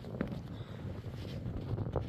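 Wind buffeting the microphone: a low rumble, with a couple of faint knocks.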